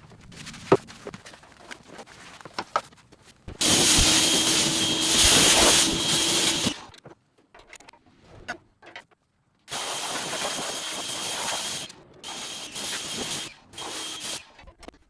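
Pressure washer spraying water in hissing bursts: one long spray, then several shorter ones, with clicks and quiet stretches between.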